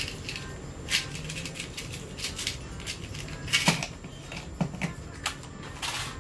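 Irregular clicking and clattering of small hard tools and parts being handled and rummaged through, as in a search for a Phillips screwdriver bit, with a few louder clacks about three and a half seconds in and again near the end.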